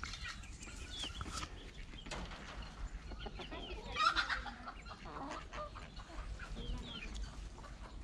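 Chickens clucking, with scattered short calls and a louder burst of calls about four seconds in.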